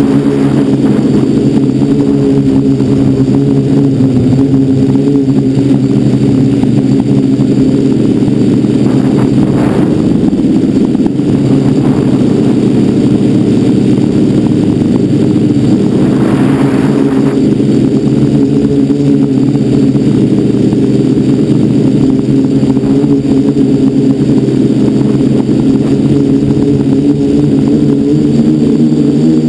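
FPV quadcopter's electric motors and propellers buzzing loudly and steadily, picked up by the GoPro mounted on the craft. The pitch shifts slightly around ten seconds in, and a brief rush of noise comes about sixteen seconds in.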